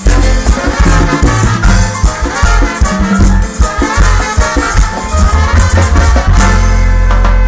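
Live band playing loud Latin dance music with trumpets and a heavy bass line, without vocals.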